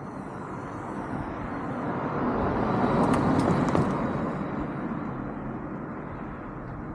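A passing vehicle whose noise swells to a peak about three seconds in and then fades away.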